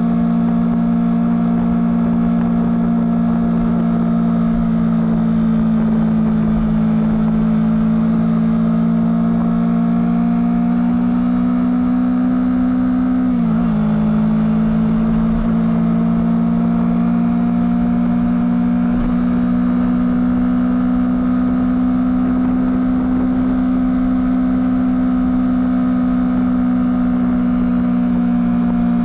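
Honda CBR250RR motorcycle engine on its stock exhaust, running at steady high revs; about halfway through the pitch dips sharply for a moment, then holds steady again.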